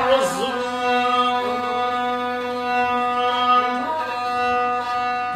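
A violin held upright on the knee and bowed like a rebab (rababa), sustaining one long steady note and changing note about four seconds in.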